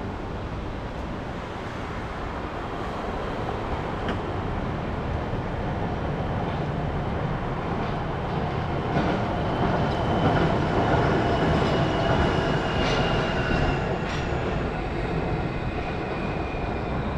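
Wuppertal Schwebebahn suspended monorail train running, a steady rumbling noise that grows louder toward the middle. In the second half a faint whine falls slightly in pitch, with a few scattered clicks.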